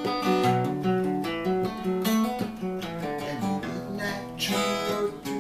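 Acoustic guitar playing an instrumental passage of a song, picked notes and strummed chords with no singing.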